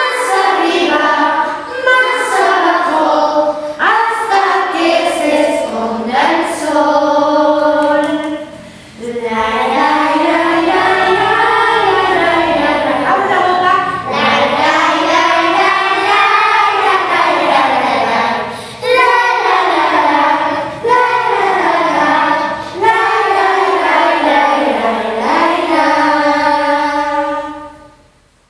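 Children's choir singing a song together, phrase after phrase with a rising and falling melody, fading out near the end.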